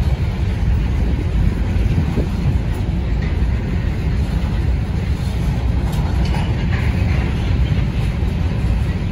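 Freight train of covered hopper cars rolling past at close range: a loud, steady low rumble of the cars' wheels on the rails.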